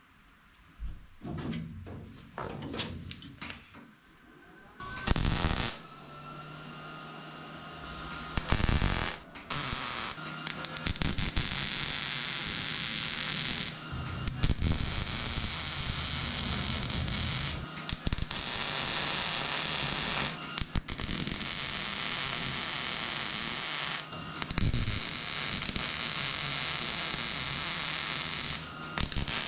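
MIG welding of a sheet-steel A-pillar patch panel with a Miller 211 welder. There are a few short bursts in the first seconds, then long runs of steady crackling broken by brief pauses every few seconds as each weld run stops and starts.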